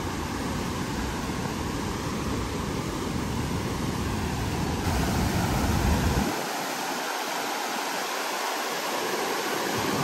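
Steady rush of a small waterfall and rapids pouring over bedrock in the Katashina River gorge. A low rumble under the water stops about six seconds in.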